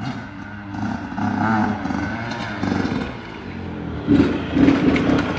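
Small two-stroke dirt bike engine revving up and down as it rides, getting louder about four seconds in as it passes close by.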